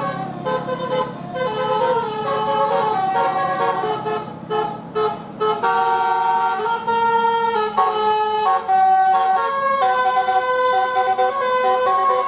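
Bus telolet horn, a set of musical air horns, playing a tune of short notes that step up and down in pitch.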